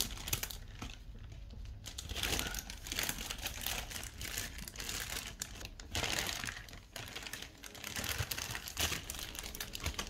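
A thin plastic camera rain cover crinkling and rustling as it is handled and pulled over a camera rig, with irregular small knocks and clicks.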